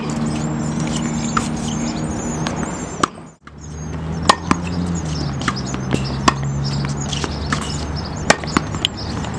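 Tennis ball struck by a racket, sharp irregular pops in a forehand volley drill, over a steady low hum with birds chirping. The sound drops out briefly about a third of the way in.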